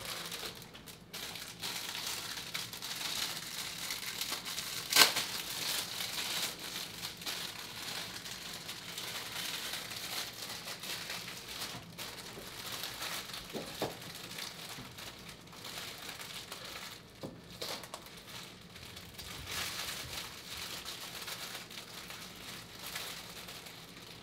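Food frying in a hot pan for karaage fried rice: a steady crackling sizzle, with one sharp knock about five seconds in.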